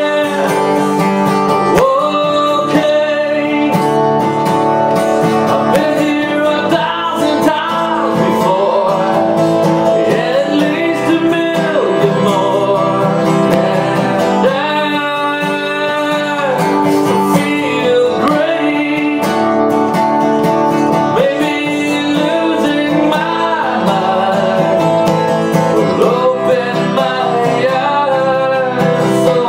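A man singing solo while strumming chords on a cutaway acoustic guitar, an acoustic rock song played live.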